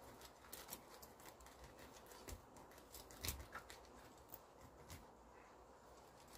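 Faint, scattered soft clicks and rubbing as a cut lemon half is pressed and rubbed over a roasted corn cob, a little louder twice near the middle.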